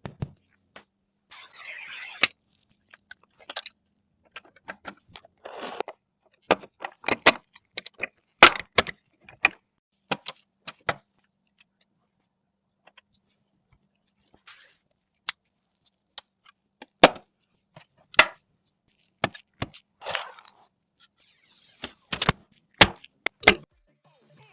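Scattered sharp clicks and taps, with a few short rustles, separated by silent gaps: hard plastic and metal computer parts being handled and snapped into place during a PC assembly. The loudest clicks fall about a third of the way in and again a little past two-thirds.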